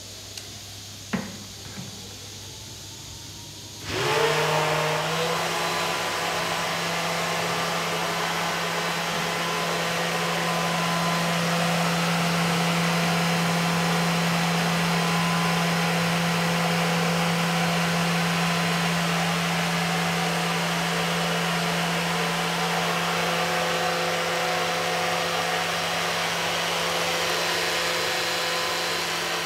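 Electric drum-pump motor (SP-450V variable-speed motor on a polypropylene drum pump) switching on about four seconds in, spinning up in a moment, then running with a steady hum and whine as it pumps liquid out of the drum. A single sharp click comes about a second in, before the motor starts.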